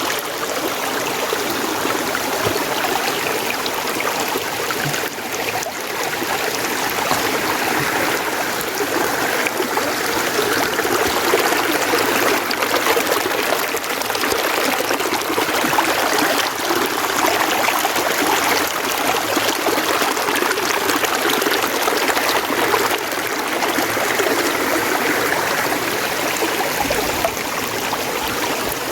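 Mountain stream flowing, a steady rushing and trickling of water with no pauses.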